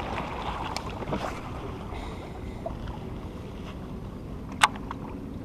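Choppy water lapping against a small PVC-pipe raft, with wind on the microphone. A single sharp click comes near the end.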